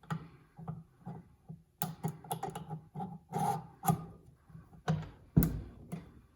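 Irregular clicks, taps and knocks of small parts and tools being handled during reassembly of a stand mixer's gearbox, a dozen or so over the few seconds, with one louder knock about five and a half seconds in.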